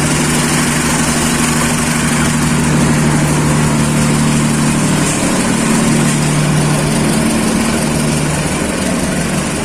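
Diesel locomotive engine running steadily at idle, a constant deep hum with a faint hiss over it.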